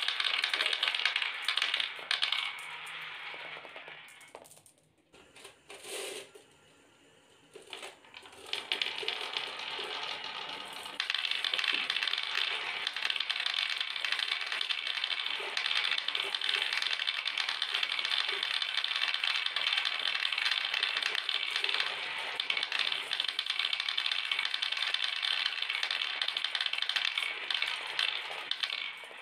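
Dozens of marbles clattering down a marble run and bouncing onto a wooden floor: a dense, steady stream of clicks. The clatter thins out about four seconds in and almost stops for a few seconds, then builds back and runs dense again from about eleven seconds on.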